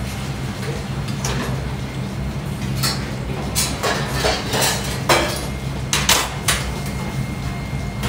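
Ramen noodles being slurped in a run of short, sharp bursts, several close together in the middle, with light clinks of bowls and chopsticks, over a steady low background sound.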